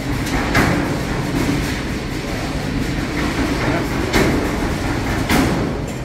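Mobile archive shelving rolling along its floor rails as its three-spoke handwheel is turned: a steady low rumble with a few knocks, easing off near the end.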